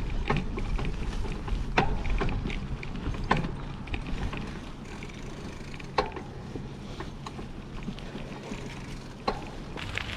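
Bicycle ride on a path: a steady low rumble of tyres and wind on the microphone, broken by five sharp knocks or rattles as the bike goes over bumps.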